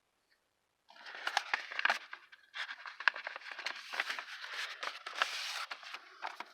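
Rustling and crinkling of packaging being rummaged through by hand, with many small clicks and taps; it starts about a second in and carries on, dying down near the end.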